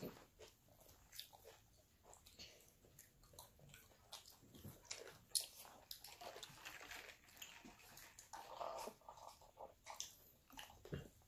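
Faint chewing and biting of food, with scattered small clicks and taps from eating.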